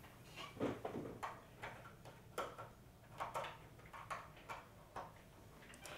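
A string of faint, irregular clicks and taps from a USB cable being handled and its plug pushed into a computer's USB port.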